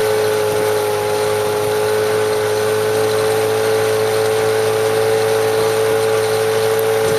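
Motorboat engine running at a steady speed, an even hum that holds one pitch throughout.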